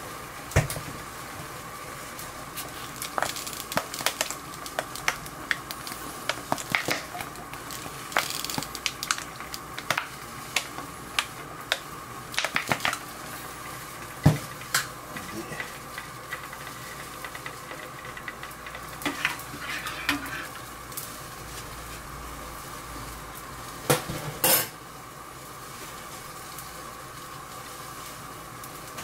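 Metal utensils clinking and tapping against a small metal saucepan and dishes while seasonings are added to dashi, in many sharp separate clicks with a louder clatter about 24 seconds in.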